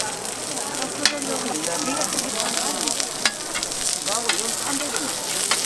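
Battered jeon sizzling in oil on a flat-top griddle. A few sharp clicks of the metal spatula and tongs against the griddle sound as the pieces are turned.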